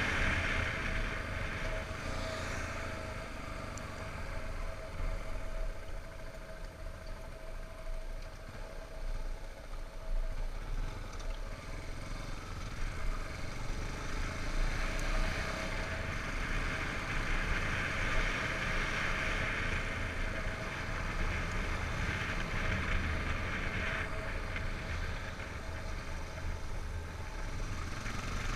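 Yamaha XTZ 250 Lander's single-cylinder engine running steadily while the bike is ridden, with a rushing hiss of air over the camera that swells and fades.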